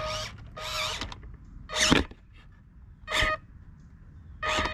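Small electric drive motor and gearbox of a 1/18-scale Glacier RC C10 crawler truck whining in five short throttle blips. The loudest blip comes about two seconds in.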